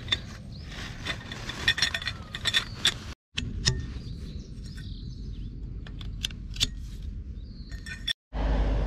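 Metal sections of VASTLAND sectional tent poles clinking and clattering against each other as they are taken out of their bag and fitted together. The clinks come thick and fast at first. After a short break about three seconds in, they come as sparser single clicks.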